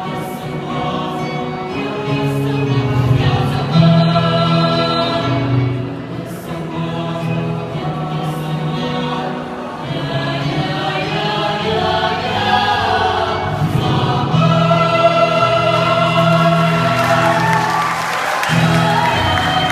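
A choir singing in several-part harmony, with low and high voices holding long sustained notes.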